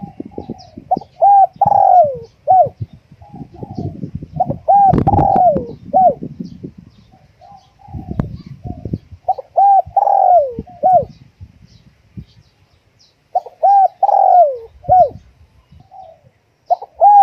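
Spotted dove cooing. The song is a phrase of a few short coos with one longer, falling note, repeated five times about every three to four seconds. Low thumps and rumbling run under the first half, and faint high chirps of small birds come through.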